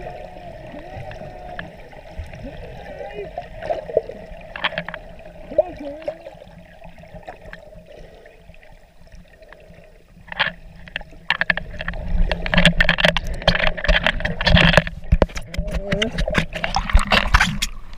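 Underwater sound picked up by a snorkeler's camera: a muffled steady hum with some wavering tones. About eleven seconds in, loud bubbling, splashing and knocking sets in and runs on as a hand moves over the camera.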